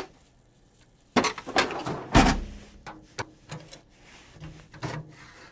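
Handling noises from taking apart a vintage electronics unit: irregular knocks, clicks and scrapes of its metal chassis and parts, with a heavier thump about two seconds in.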